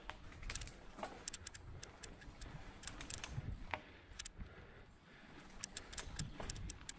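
Mountain bike rolling slowly over a dirt forest trail: irregular light clicks and rattles from the bike, over a low, uneven rumble.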